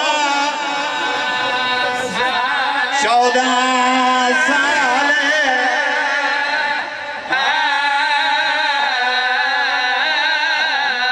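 A man's voice chanting a mourning lament in long, wavering, drawn-out melodic lines, amplified through a microphone. There is a brief break for breath about seven seconds in.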